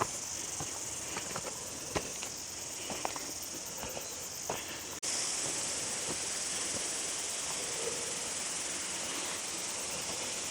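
Steady high-pitched insect chorus in the bush, with a few faint footsteps on the dry track in the first half. It gets suddenly louder about five seconds in.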